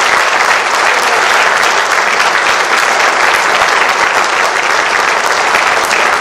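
An audience applauding, holding at an even level.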